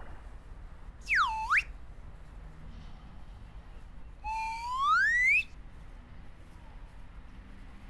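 Two whistle sound effects that glide in pitch. About a second in, a quick one swoops down and back up. Around four seconds in, a longer one rises steadily for about a second.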